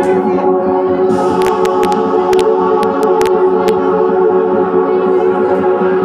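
Music with choir-like singing holding long, steady notes. Several sharp clicks come about one and a half to four seconds in.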